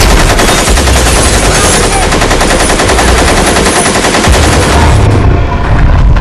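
Rapid automatic gunfire from rifles and a machine gun, a fast unbroken string of shots that stops about five seconds in.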